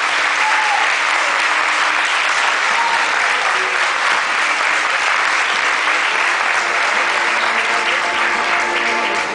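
Audience applauding steadily in a theatre.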